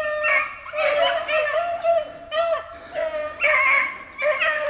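Pack of beagles baying on a rabbit's trail: short, repeated, pitched calls about two a second from several dogs, some overlapping.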